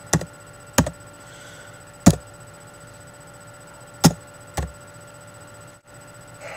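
Five sharp knocks on a desk at uneven intervals, the loudest about two seconds in, over a steady electrical hum.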